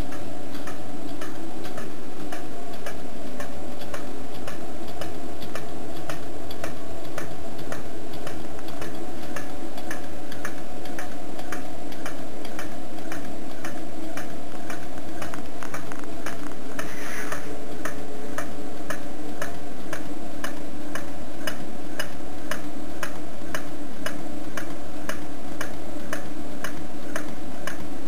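Homemade tin-can Stirling hot-air engine running, knocking at a regular beat of nearly two knocks a second over a steady hum. The knock comes from a sloppy connection at the top of the power piston, which loses energy.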